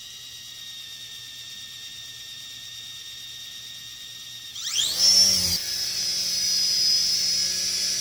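DEERC SQN-040 toy RC helicopter's electric rotor motors whirring softly at low speed, then almost five seconds in spinning up with a quick rising whine to a louder steady whine as it takes off.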